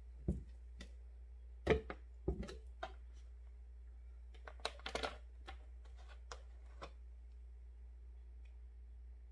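Plastic oil bottles and a jug being handled and set down on a table: a series of knocks and clunks, the loudest about one and a half seconds in and a quick cluster about five seconds in, over a steady low hum.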